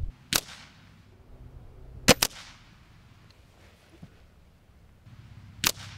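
A .177 Remington Express break-barrel spring-piston air rifle firing, with three sharp reports, each with a brief ringing tail. The middle one, about two seconds in, is a quick double crack and the loudest.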